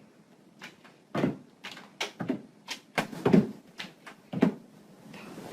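An irregular series of about ten sharp knocks and thumps over roughly four seconds, with some echo from a small room.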